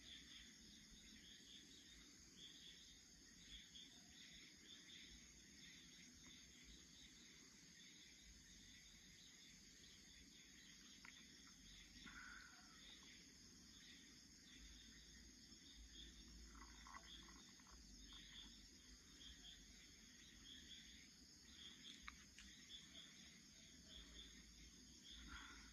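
Faint insects chirping: a steady high trill with soft repeating chirps, very low in level. A few faint, brief lower sounds come partway through and near the end.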